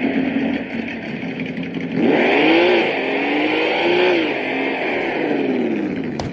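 Simulated engine sound from a remote-control car sound module, played through its small speaker: a steady idle, then two rev blips about two and four seconds in, with the pitch rising and falling back to idle. A sharp click comes just before the end.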